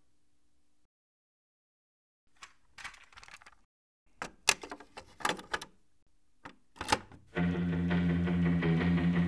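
Clicks and clatter of a mini hi-fi system's cassette deck as a tape is loaded and its keys are pressed: a run of sharp mechanical clicks. About seven seconds in, guitar music starts playing.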